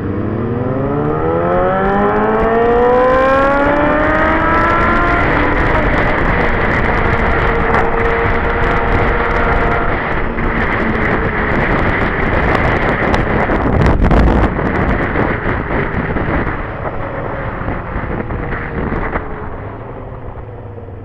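Honda sportbike's inline-four engine accelerating, its pitch climbing steadily through the first five seconds or so, then holding at speed under heavy wind noise on the microphone. Near the end the engine note falls and the sound eases off as the bike slows.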